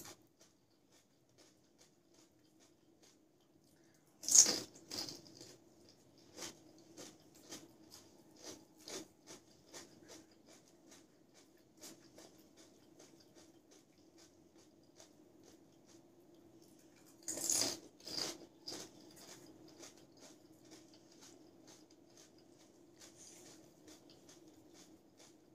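Crisp golgappa (pani puri) shells crunching as they are bitten, twice: about four seconds in and again about two-thirds of the way through. Each bite is followed by chewing with small crunches and clicks, over a low steady hum.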